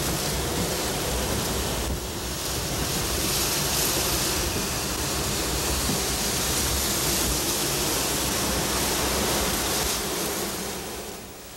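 Hurricane wind and driving rain on a camcorder microphone: a steady, even rush of noise that dips briefly about two seconds in and fades out near the end.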